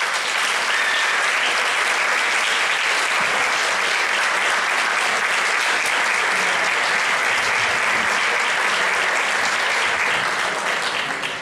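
Audience applauding steadily after a performance ends, dying away near the end.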